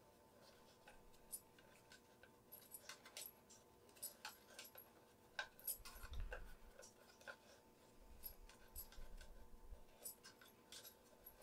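Faint, irregular clicks and light scrapes of a metal arc reactor replica being screwed by hand onto its display stand.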